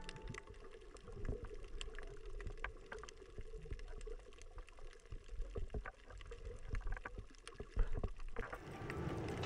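Underwater ambience heard through a GoPro housing: faint scattered sharp clicks and crackles over a low rumble of water movement. A louder, rushing hiss sets in near the end.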